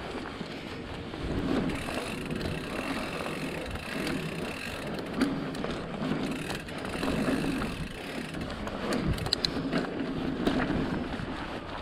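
Mountain bike riding over a dirt trail: tyre noise with scattered rattles and clicks from the bike.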